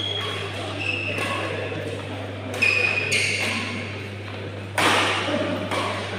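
Badminton rally: sharp racket strikes on the shuttlecock every second or two, the loudest about five seconds in, with short high squeaks of shoes on the synthetic court mat, echoing in a large hall.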